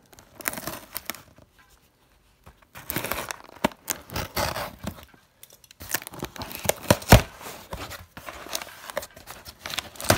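Scissors slitting the packing tape along the seam of a cardboard box: the tape tearing and the cardboard crackling and scraping in three bouts with short pauses between, with sharp clicks and knocks that are loudest about seven seconds in.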